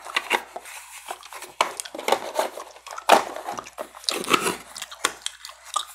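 Plastic cassette tape cases handled close to a clip-on microphone: irregular clicks, taps and rustles of the cases being turned over and opened.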